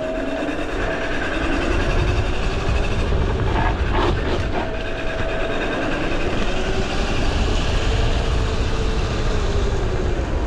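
Wolf King GTR electric scooter riding along with its rear brake disc rubbing on the pads, a steady train-like rumble with a wavering whine over it. The disc is either bent or the wheel is out of alignment.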